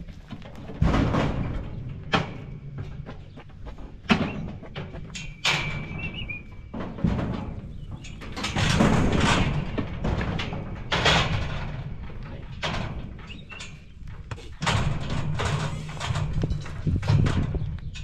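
Steel corral panels and a livestock chute banging and rattling as Hereford cattle are pushed into it: repeated irregular metal knocks and clanks.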